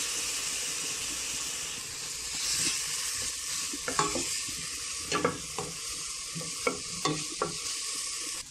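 Chopped onion and garlic sizzling in oil in a stainless steel pot, frying as the aderezo base, with a spoon scraping and knocking against the pot as it is stirred; the knocks come several times in the second half. The sizzle cuts off just before the end.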